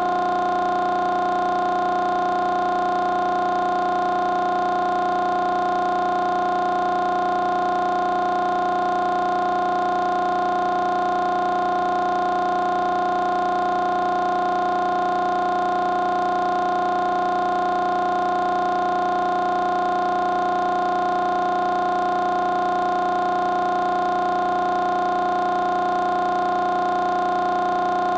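A steady, unchanging pitched tone with overtones.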